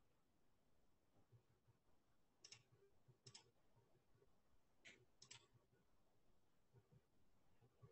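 Near silence broken by four faint computer mouse clicks, in two pairs, as dialogs are clicked through on screen.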